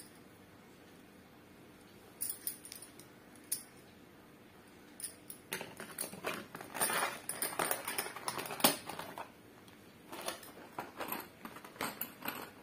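Bangles clinking and jangling against one another while being put into a clear plastic storage box, with plastic clicks as the box is handled. A few scattered clicks come first, then a busier stretch of clattering from about halfway through.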